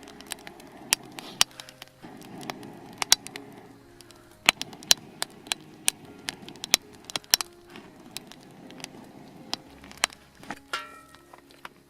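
Wood campfire crackling, with many sharp, irregular pops, over soft background music.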